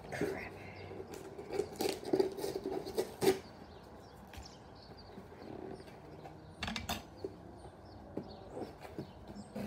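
A butter knife scraping and prying at a cardboard package, with rustling of the packaging; a cluster of sharp scrapes in the first three seconds and two more about seven seconds in.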